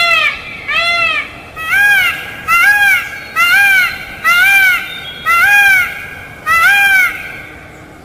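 Peafowl calling: a series of about eight loud, short calls at roughly one a second, each rising then falling in pitch, ending about a second before the end.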